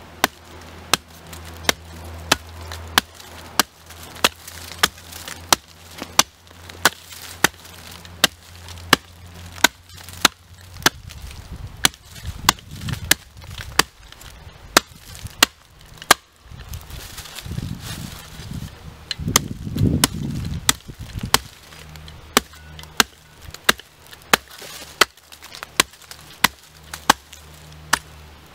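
Sharpened blade edge of a Schrade folding shovel chopping into a birch log: repeated sharp chops at a steady pace of about three every two seconds.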